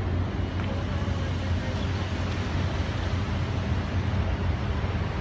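Steady outdoor city background noise with a strong low rumble and no distinct event standing out.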